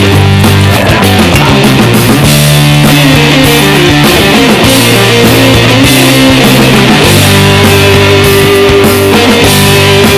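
Loud background rock music with guitar and a steady beat.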